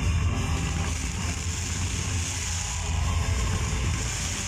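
Fireworks display going off continuously: a steady low rumble with dense crackling and hiss, and no single big bang standing out.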